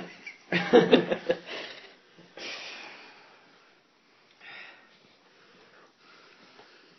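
A man's loud voiced groan or outburst about half a second in, then quieter heavy breathing and sniffing through the nose as he struggles to eat a Tabasco-covered pilchard.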